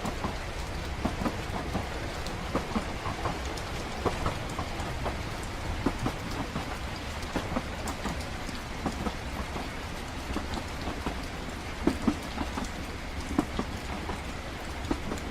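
Train-ride ambience: the low, steady rumble of a train running, with rain pattering and scattered small taps and clicks.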